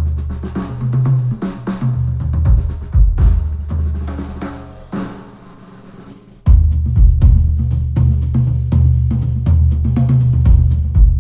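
Instrumental music with a full drum kit beat of kick, snare and hi-hat over a heavy bass line, played back through over-ear headphones and picked up by measurement microphones. The beat fades down to a quiet breakdown about five seconds in, then the full beat comes back in suddenly about a second and a half later.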